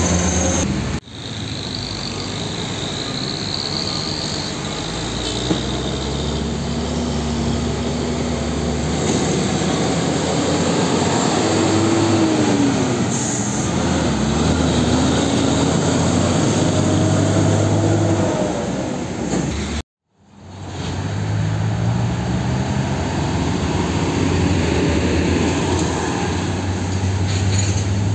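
Heavy diesel dump trucks driving past one after another: deep engine drone with tyre and road noise, the engine pitch rising and falling as they pull through. The sound cuts off abruptly twice, about a second in and again about two-thirds of the way through.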